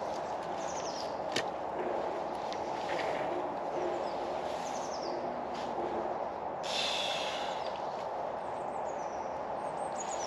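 Woodland ambience by a small campfire: birds calling with short high phrases and a faint low repeated call, over a steady hiss. Light clicks and crackles come from the fire and the sticks being handled, with a brief rustle about seven seconds in.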